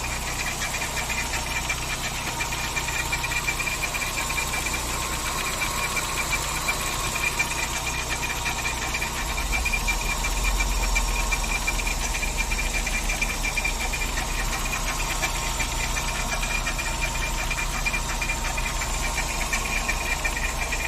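Volkswagen AP 1.6 four-cylinder engine running steadily with the cylinder-head cover off, with a persistent, fast pulsing abnormal noise over the engine sound. The owner has ruled out the cylinder head and suspects a pulley or the timing belt. A deeper rumble swells for a couple of seconds about ten seconds in.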